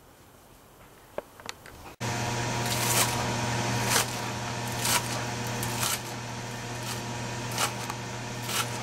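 Knife chopping green onions on a plastic cutting board: sharp chops about once a second, starting after a couple of seconds of near quiet, over a steady low electrical hum.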